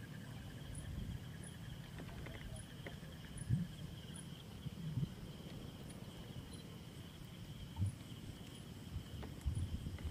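Insects chirping steadily at night: a continuous high trill with a faint, higher chirp repeating about every half second, and a few soft low thumps.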